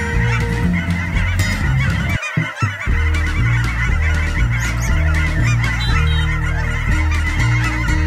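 A large flock of geese and swans honking and calling, many overlapping calls at once in a constant chorus.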